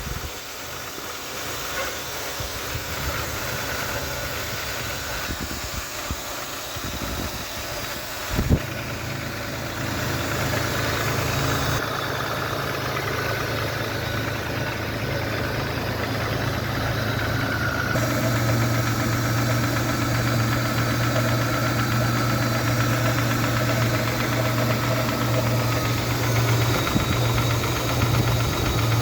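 Mitsubishi 6G72 12-valve 3.0 L V6 running steadily with a knock (стук) in it, the fault the owner is showing. It grows louder about twelve seconds in and again about eighteen seconds in, with one sharp click about eight seconds in.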